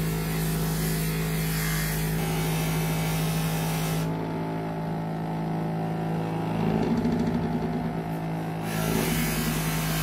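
Bench grinder motor running with a steady hum while a metal butterfly-knife handle is held against the spinning wheel, a hissing grind over the hum for the first four seconds or so and again near the end, with a quieter stretch in between.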